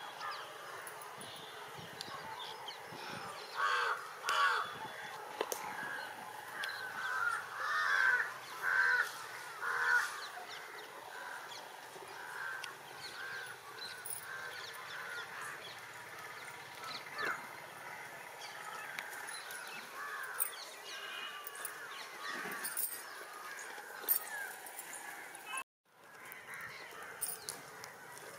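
Birds calling over and over, a string of short calls at about two a second, loudest between about four and ten seconds in and fainter after.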